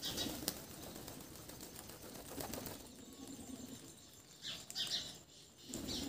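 Wings of rose-ringed parakeets flapping as they fly on and off a feeder, in a few short, faint flurries: one at the start, another near the end.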